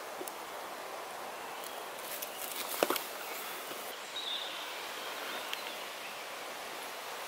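Steady outdoor hiss with brief rustling of bilberry shrub leaves being handled. There is one sharp click a little before the middle.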